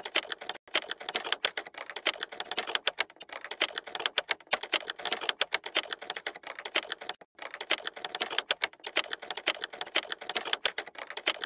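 Keys being typed: rapid, irregular clicking, several clicks a second.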